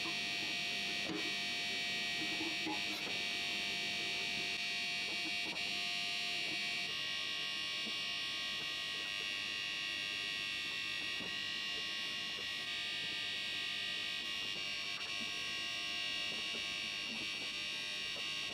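A steady high-pitched electrical buzz made of several held tones, its pitch pattern shifting abruptly about seven seconds in.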